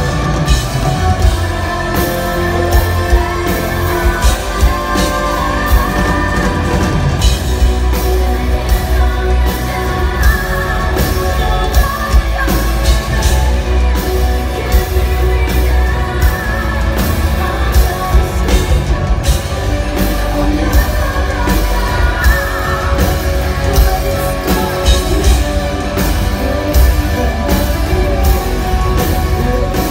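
Symphonic metal band playing live at loud volume: a woman's lead vocals over a steady pounding drum kit and keyboards, heard in a concert hall.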